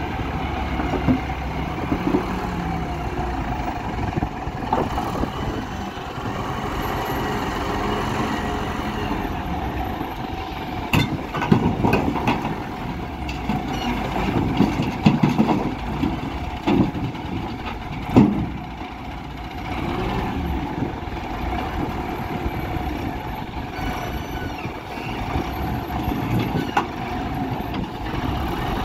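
Wheel loader's diesel engine running steadily as it lifts its bucket. Midway, a series of crashes as rocks tip from the bucket into the tipper truck's steel bed.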